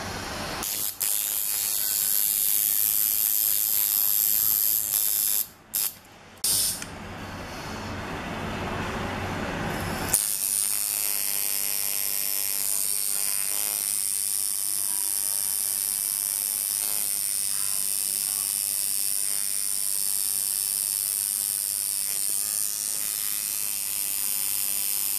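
Electric tattoo machine buzzing steadily as the needle lines black ink into skin. It cuts out briefly twice about five and six seconds in, and settles into an even, unbroken buzz from about ten seconds in.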